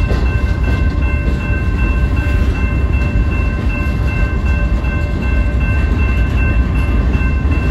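Freight train cars rolling past, a loud steady low rumble of wheels on rail. Above it hangs a steady high ringing made of several tones.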